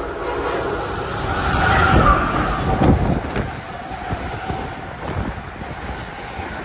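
A train passing close by: a rush of rumble and wind noise with knocks from the wheels, loudest about two to three seconds in, then easing off.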